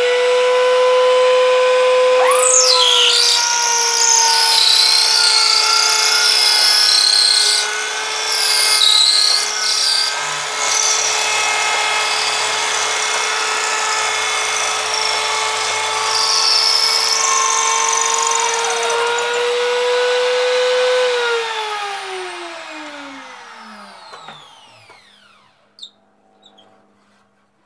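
Trim router with a roundover bit running at full speed, its high motor whine sagging slightly in pitch under load while a square wooden strip is fed through and rounded into an 8 mm dowel, with a rough scratchy cutting noise. Near the end the whine climbs back up, then the router is switched off and winds down.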